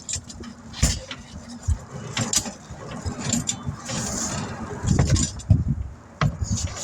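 Intermittent metallic clanks and knocks from tire work as tires are broken free from their rims, with low rumbling bursts between them.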